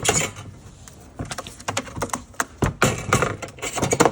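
Quick clicks and rustles from a pigeon being handled into a small cage, in uneven clusters that are busiest at the very start and again from a little under three seconds in.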